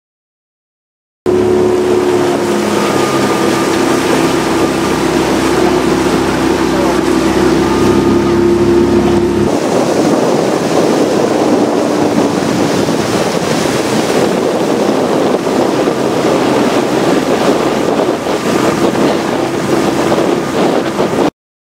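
Motorboat engine running steadily under wind buffeting on the microphone. About nine seconds in the sound changes abruptly: the engine note becomes fainter and a rougher rush of wind and water takes over.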